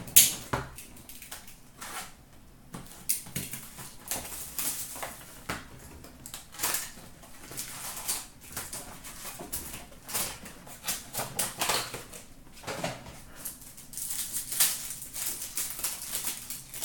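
Hands tearing open a cardboard hockey card box and pulling out the foil-wrapped packs: irregular crinkling, tearing and rustling of cardboard, plastic and foil, with one sharp crackle about half a second in.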